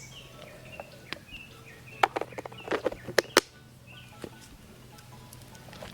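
Birds chirping in the background in short, repeated calls, with a few sharp clacks, the loudest about two and three seconds in.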